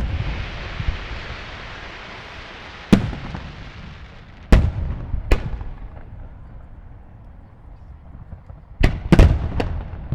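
Aerial fireworks shells bursting in sharp booms: one about three seconds in, two more in quick succession around four to five seconds, and a cluster of three near the end. Each boom trails off in a rolling echo, and a hissing crackle fills the first few seconds.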